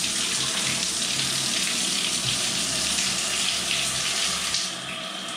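Grohe Euphoria SmartControl hand shower spraying a jet of water onto the bottom of a bathtub: a steady hiss of water that gets a little softer near the end.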